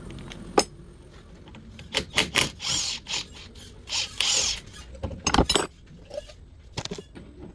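Hand tools working on metal steering parts: sharp clinks and knocks, with two spells of rough metal scraping, the first about two and a half seconds in and the second about four seconds in.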